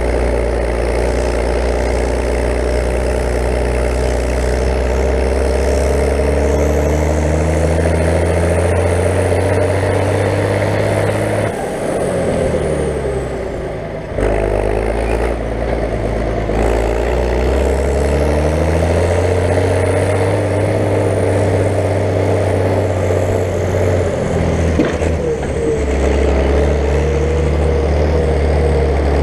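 David Brown 1694 tractor's turbocharged four-cylinder diesel engine running under way, with its turbo whistling. The revs fall away about twelve seconds in, with a falling whistle, and build again a couple of seconds later, then shift once more near the end.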